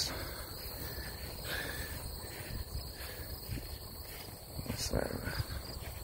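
Steady high-pitched chorus of insects, an unbroken pair of tones, over a low rumbling noise.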